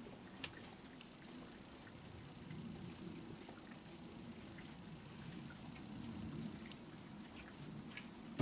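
Raccoons eating kibble and hot dog pieces: faint chewing and munching with scattered small clicks.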